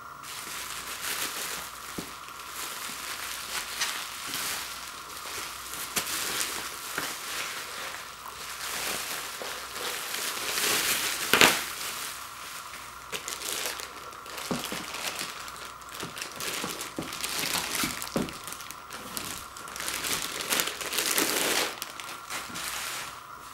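Bubble wrap and clear plastic wrapping crinkling and crackling as it is pulled off a boxed set of LP records, with a sharp crackle about eleven seconds in.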